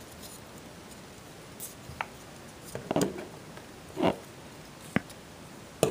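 Handling of an opened foil blind-box bag and vinyl toy figures on a wooden table: a few short crinkles and taps about a second apart, ending in two sharp clicks.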